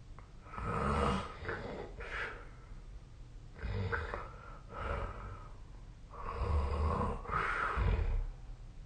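A sleeping person snoring: three rough, low rattling snores, one with each breath, about every two and a half to three seconds.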